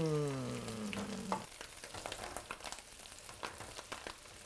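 Shallots, garlic and herbs frying quietly in butter in a stainless steel sauté pan, with scattered clicks and scrapes of a wooden spoon stirring them. For the first second and a half a man's long drawn-out voice sound, falling in pitch, is louder than the frying.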